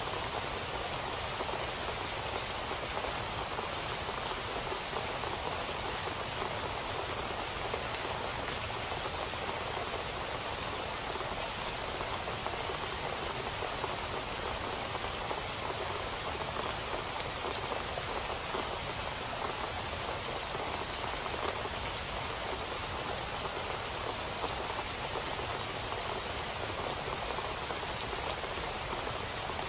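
Heavy rain falling steadily and splashing into water pooled on a flat surface. The patter is dense and even, with crisp single drop hits standing out all through.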